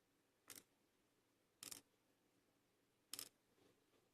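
Three short, quiet clicks, roughly a second and a half apart, from small metal lock parts being handled as the padlock's cylinder is taken apart and its pins removed.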